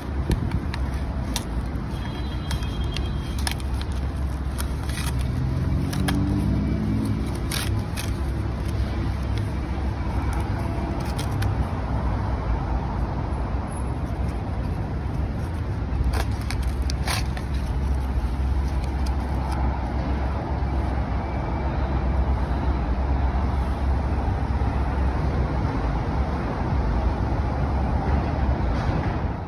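Steady low rumble of vehicle noise, with scattered sharp clicks and a short rising tone about six seconds in.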